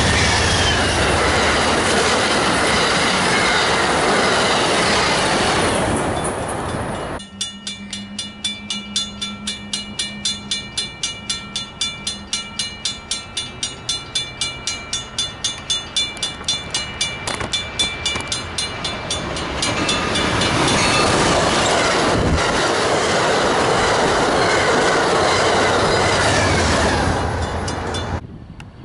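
Amtrak Hiawatha passenger train, led by a GE P42DC diesel locomotive, passing at speed with loud rushing wheel and rail noise. After a cut, a bell rings steadily about two and a half times a second, a grade-crossing bell, while the next train approaches. From about twenty seconds in, a second passenger train passes with the same loud rail noise, and the sound cuts off near the end.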